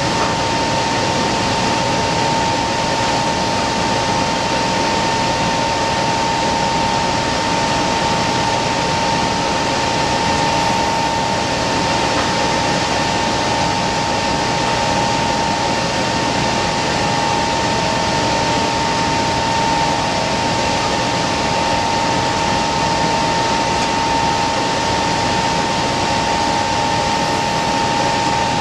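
Kundig top and bottom sanding machine running steadily: an even rush of motors, belts and air with a constant high hum over it.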